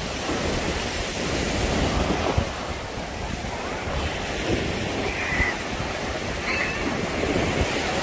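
Small waves breaking and washing up a sandy beach in a steady surf wash, with wind buffeting the microphone.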